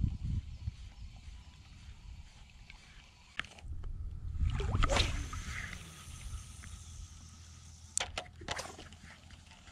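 A spinning rod being cast: a loud swish of the rod and line about halfway through, followed a few seconds later by a few sharp clicks from the spinning reel. A low steady rumble of wind and water runs underneath.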